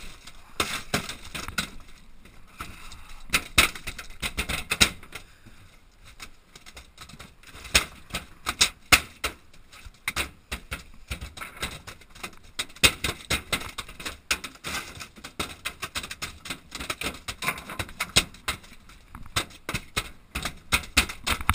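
Irregular knocks and slaps on a metal boat deck as a freshly caught halibut flops against it, some hits in quick clusters.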